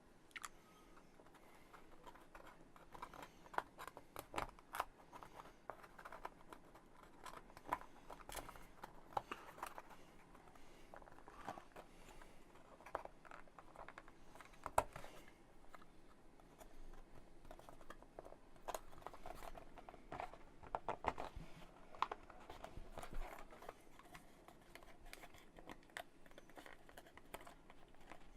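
Laser-cut MDF kit pieces being handled and dry-fitted together by hand: scattered light clicks, taps and short scrapes, irregular and spread throughout.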